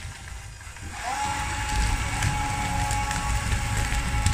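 Radio-controlled model CAT D6T bulldozer's electric drive whining steadily. The whine starts about a second in with a brief rise in pitch, over a low rumble of its running gear.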